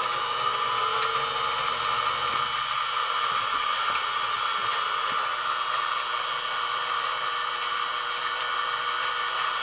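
Mini mill's spindle motor running steadily at speed just after being switched on: a constant whine with several steady high tones.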